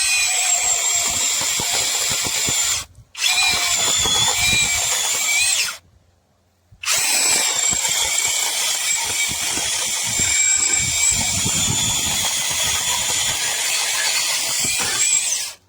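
Cordless 6-inch brushless mini chainsaw running flat out with a high whine that wavers slightly. The motor stops briefly about three seconds in, stops again for about a second around six seconds in, then runs on steadily.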